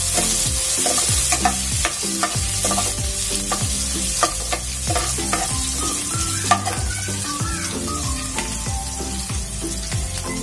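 Chopped ginger, green chillies and whole dried red chillies sizzling in hot mustard oil in a kadai, being roasted while a steel ladle stirs and scrapes them. The ladle makes repeated light clicks against the pan.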